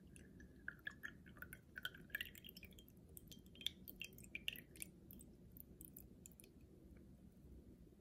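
Water poured in a thin stream into a small glass beaker: a faint trickle with small splashes, its pitch rising as the beaker fills, stopping about five seconds in.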